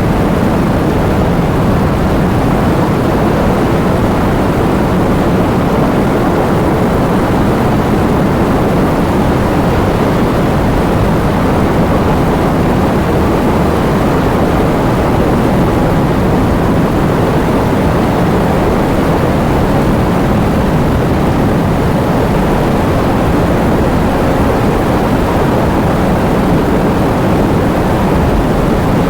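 Heavy rain falling steadily: a dense, even rush of noise, heavier in the low and middle range, with no single drops or other events standing out.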